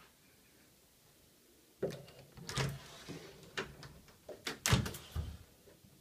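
Bifold closet doors being pulled open: a run of knocks and rattles from the folding panels, starting about two seconds in, with the loudest thump near the end.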